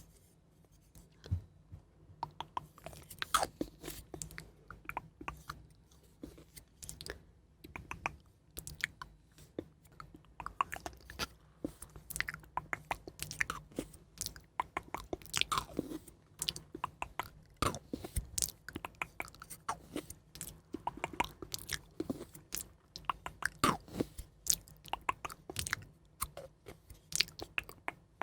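Close-miked ASMR eating sounds: crunchy chewing and biting, a dense irregular run of sharp crackles and clicks.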